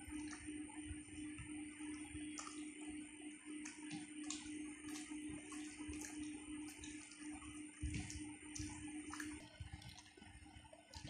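Eating by hand at close range: fingers squeezing and mixing rice and curry on a plate, with a run of short wet clicks and smacks, and a low knock just before eight seconds in. A steady low hum underneath stops near the end.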